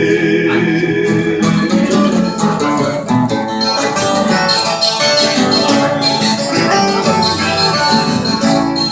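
Sertanejo music: a held sung note ends about a second in, then an instrumental break led by plucked viola caipira (Brazilian ten-string guitar) over guitar backing.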